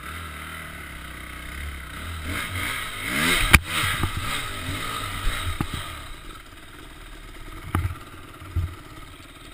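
Dirt bike engine revving hard up a steep rocky climb, its pitch rising and falling. A sharp knock a few seconds in, the loudest sound, then the engine eases off with a few thumps from the bike going over rough ground.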